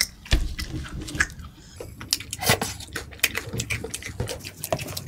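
Close-miked chewing of crunchy food: irregular crisp crunches with soft, wet mouth sounds in between.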